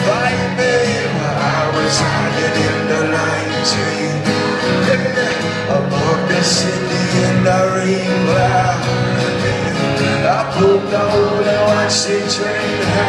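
Live acoustic guitar strummed steadily, with singing over it, heard through a concert room from the audience.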